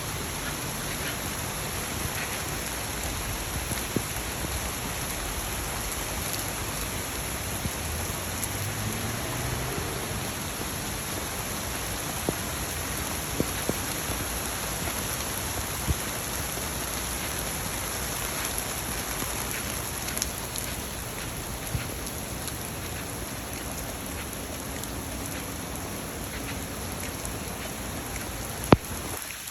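Steady rain falling, with scattered sharp drip ticks, the loudest near the end.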